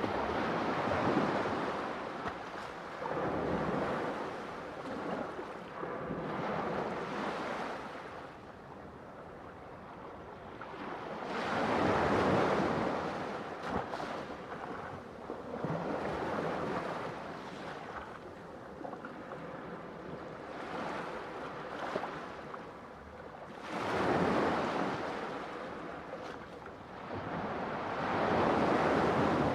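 Ocean waves breaking and washing on a shore, the surf swelling and fading in slow surges about every ten seconds.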